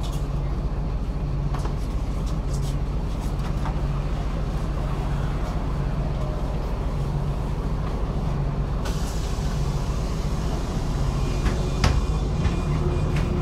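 MAZ-103 city bus heard from inside the cabin while riding: a steady diesel engine hum with road noise. About nine seconds in a hiss sets in, and a sharp knock comes near the end.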